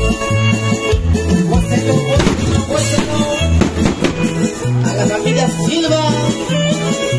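Live band playing upbeat Latin dance music, with a steady, repeating bass line under the melody.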